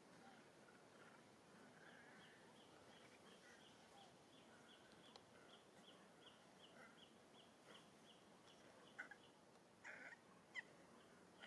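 Near silence: faint outdoor ambience with a high chirp repeating about three times a second, and a few short, sharp squeaks near the end.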